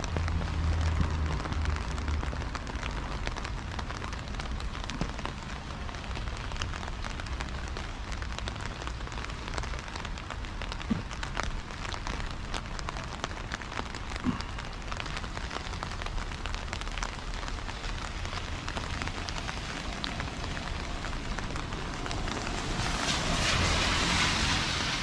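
Light rain falling steadily, with many small scattered drop taps. Near the end a hiss swells up, a car's tyres on the wet road.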